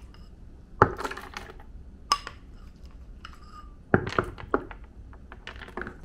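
A ceramic spoon clinking and scraping against a ceramic bowl as dog food is spooned into a plastic slow-feeder bowl. It is an uneven string of sharp clinks and knocks, the loudest about a second in, two seconds in with a short ring, and four seconds in.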